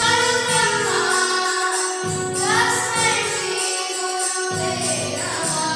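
A group of children singing a song in unison, accompanied by a Yamaha electronic keyboard, with a steady jingling percussion beat behind them.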